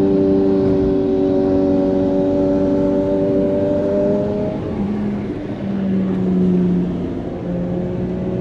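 Sport motorcycle engines running hard at steady high revs alongside, with road noise. The engine note holds and climbs slowly, then changes pitch and wavers about five seconds in.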